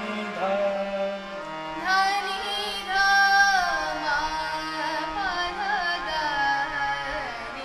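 Harmonium holding sustained notes, joined about two seconds in by a singer's wavering, ornamented melodic line in Indian classical style.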